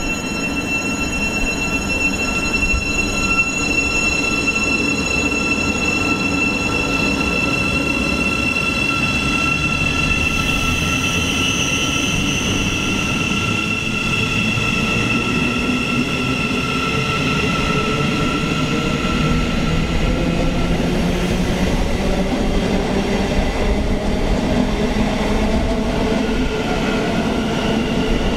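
Siemens Class 700 electric multiple unit moving off and running past close by, with steady high electric whines from its traction equipment over the rumble of wheels on rail. From about halfway a lower whine climbs steadily in pitch as the train gathers speed.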